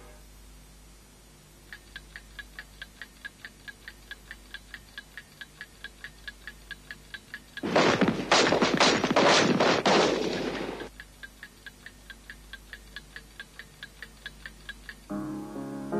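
Animated-film soundtrack effect of a clock ticking fast and evenly, about four ticks a second. In the middle it is broken for about three seconds by a loud burst of rapid sharp bangs, like a rattle of gunfire. Piano music comes in near the end.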